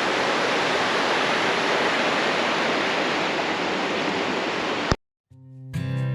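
Steady rushing water of river rapids, cut off suddenly with a click about five seconds in. Acoustic guitar music fades in near the end.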